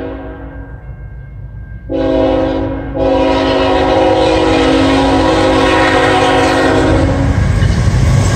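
Lead Canadian National freight locomotive's multi-note air horn sounding for a road crossing. A long blast trails off at the start, a short blast comes about two seconds in, then a long blast of about four seconds. The rumble of the locomotives and wheels on the rails swells as the train draws level near the end.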